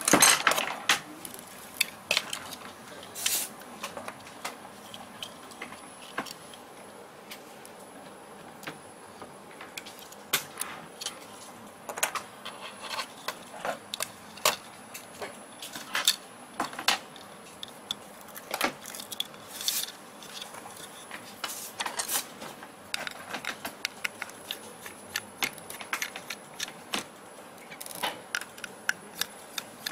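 Small plastic and metal parts of a handheld device being handled by hand: irregular clicks, taps and light scrapes as the circuit board and plastic pieces are worked on. The loudest cluster of clicks comes right at the start.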